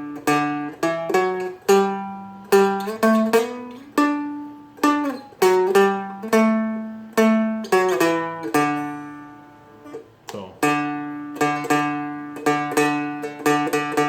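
Seagull Merlin played solo: single plucked notes and quick double strums running through a bass run. After a short lull just before ten seconds in, it moves into even, steady strumming.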